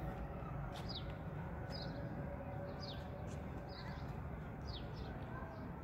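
A small bird calling over and over: short high chirps that drop in pitch, about one or two a second, over a steady low background rumble.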